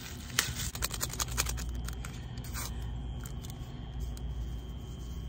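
A small paper packet crinkling and tearing open, a quick run of crackles in the first second or so, over a steady low rumble. A faint steady high tone comes in after about a second and a half.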